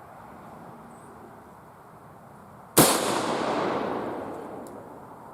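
A single shot from a Marlin 336 lever-action rifle, a little under three seconds in, its report echoing and fading away over about two seconds.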